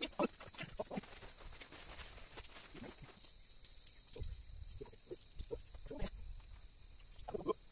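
Insects calling in a steady high trill, with a second pulsing call that stops about three seconds in. Under them, a plastic sheet rustles and knocks softly as it is pulled out and laid on a concrete floor.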